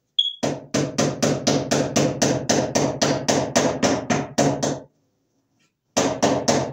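Rapid hammering, about four strikes a second, with a hand tool used as a makeshift hammer against an overhead wooden floor joist. The strikes stop for about a second, then three more come near the end.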